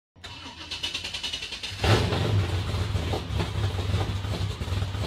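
A vehicle engine starts with a sudden loud burst about two seconds in and then runs with a deep, steady rumble, led in by a hissing whoosh.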